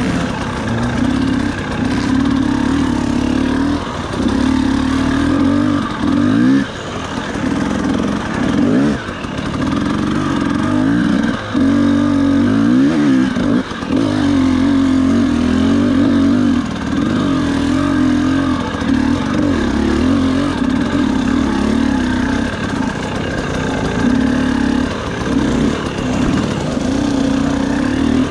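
FPV quadcopter motors and propellers buzzing steadily. The pitch drops and climbs back several times as the throttle changes.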